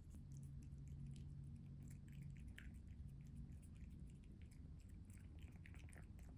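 Norwegian Forest Cat eating from a ceramic bowl: faint, irregular small clicks of chewing and licking as it works the last of its food out of the bowl.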